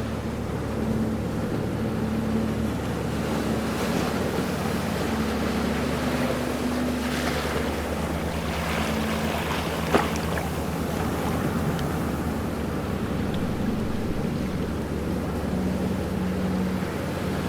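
Ocean waves washing in a steady rush, with a low steady hum underneath. A single sharp click about ten seconds in.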